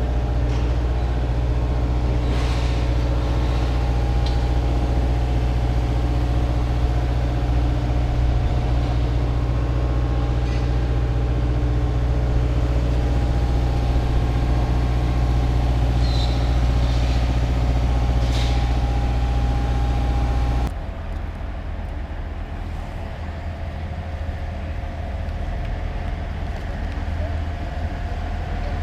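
A motor vehicle's engine running steadily with a loud, even low hum, which drops abruptly to a quieter steady hum about twenty seconds in.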